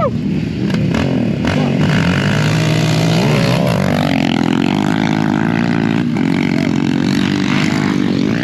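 Off-road vehicle engines running and revving, with one engine's pitch climbing steadily from about four seconds in as it accelerates.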